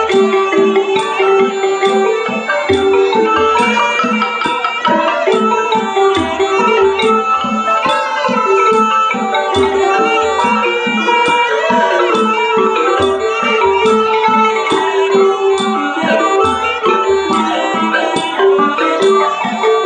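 Cambodian pinpeat orchestra playing. A sralai reed oboe holds a sustained melody over roneat xylophones, with a steady high ticking beat and low drum strokes in short groups.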